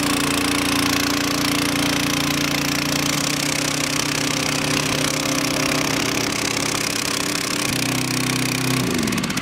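Small gasoline engine of a portable 50 gpm dewatering pump running steadily at speed, pumping water out of a flooded boat. Near the end its pitch drops as it winds down.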